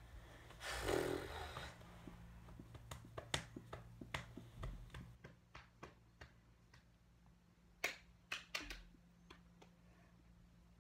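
Scattered small clicks and taps of drawing tools on paper at a table, irregular and quiet, with a brief rushing noise about a second in.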